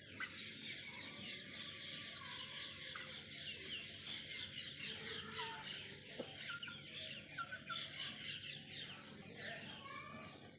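A flock of desi chickens calling all at once, a dense, continuous chatter of short high chirps with a few lower squawks mixed in.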